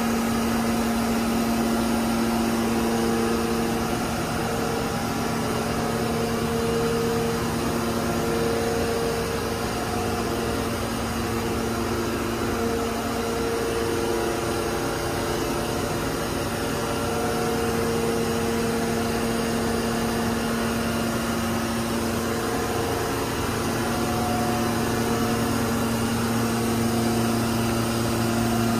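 Steady hum of running machine-shop equipment: a constant low drone with a couple of steady whining tones, one of which comes and goes every few seconds.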